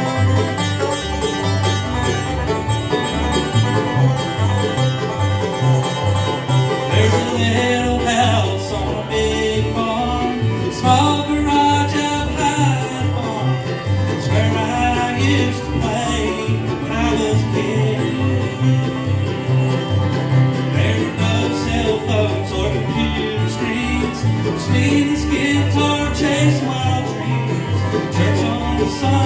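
A bluegrass band playing live: banjo rolls, fiddle, mandolin and acoustic guitar over an upright bass keeping a steady beat.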